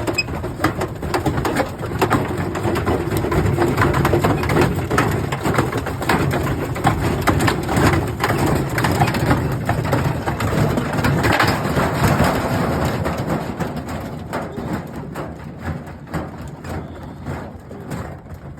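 Washing machine running with hard objects clattering and knocking around inside the spinning drum over a steady motor hum, easing off somewhat in the last few seconds.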